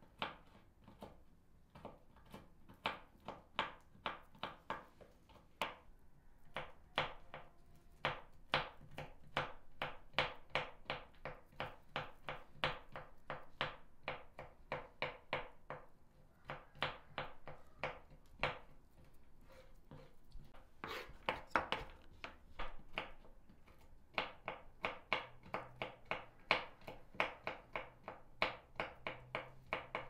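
Quick light tapping clicks, about three a second with a few short pauses, from a wooden toothpick scoring grooves into a small ball of dough.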